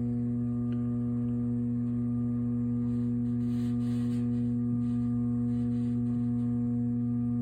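Blower motor of a 2003 Ruud Achiever 90 Plus furnace humming steadily without getting up to speed. Something is not working right in the motor or its capacitor, which the owner thinks is likely the capacitor.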